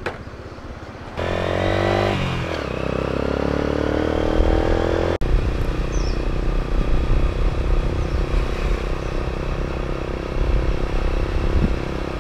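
Small motorbike engine pulling away, its pitch dipping and climbing through a gear change, then running steadily under a low road and wind rumble while riding along.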